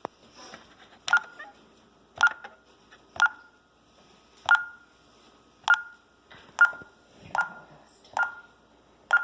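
Honeywell Vista 20P alarm keypad giving short single beeps, each starting with a click, about one a second and slightly uneven, nine in all.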